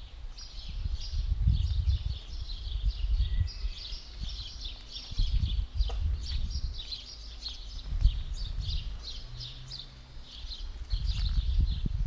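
Many small birds chirping busily and without a break. Underneath is a low, uneven rumble on the microphone.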